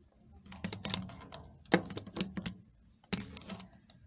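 Irregular run of clicks and soft rustles: handling noise close to the microphone. The clicks come in two clusters, with a short lull just before three seconds in.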